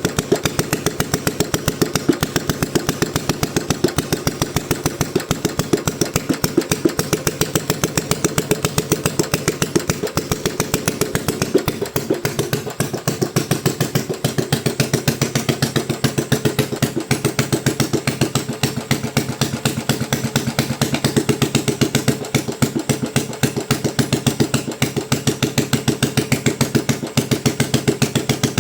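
Honda G300 single-cylinder engine, converted from side-valve to overhead valves with a Honda GX270 cylinder head, running steadily with an even, quick firing beat.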